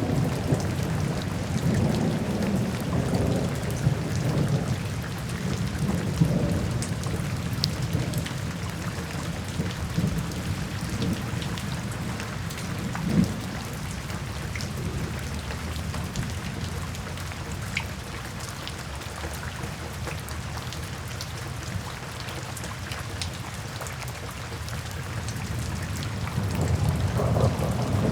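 Steady rain falling, with a low rumble underneath that is heavier at the start, eases off through the middle and swells again near the end, and one sharp crack about halfway through.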